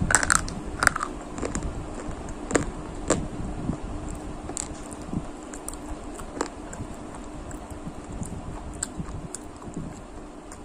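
Crunchy brittle sticks being snapped and bitten close to the microphone: a quick run of sharp crunches in the first second, then single crisp cracks at irregular intervals, over a steady low hum.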